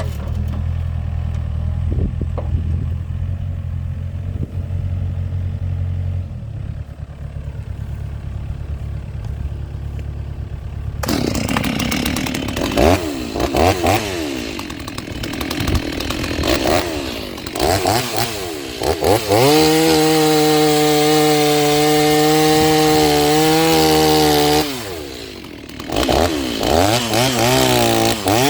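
Stihl MS 390 two-stroke chainsaw, rebuilt with a Hipa kit, idling low, then revved up suddenly about eleven seconds in with several throttle blips. It is held wide open at a steady high pitch for about five seconds, let off briefly, and revved back up near the end.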